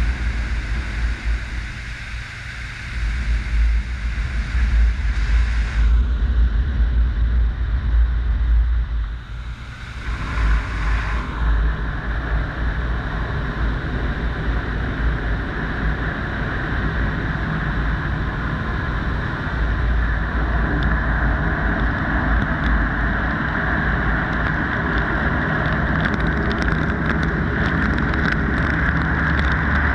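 D&S IQ soft-touch in-bay car wash running over the car: water spray rushing over the hood and a heavy steady rumble from the wash machinery. About ten seconds in, a denser, steadier hiss sets in and slowly builds toward the end.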